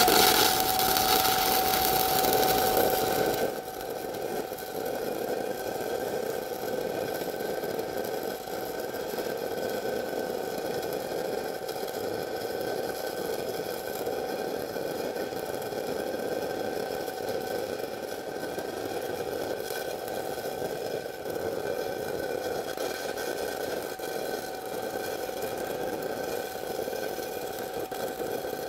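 Stick-welding arc from a 1/8-inch E6010 (5P) electrode running an open root pass on steel pipe: a continuous crackle and hiss. It is louder for the first three seconds or so, then settles to a steady, even level.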